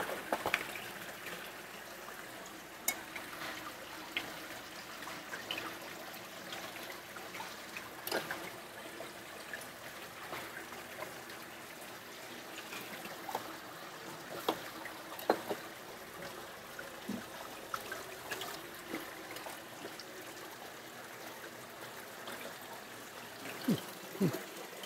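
Water running steadily from taps into basins at a kitchen sink, with scattered light clicks and knocks from handling things at the counter.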